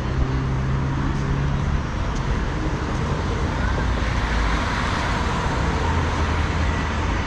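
City street ambience dominated by road traffic: a steady wash of traffic noise, with a vehicle engine's low hum for about the first two seconds and faint passers-by voices.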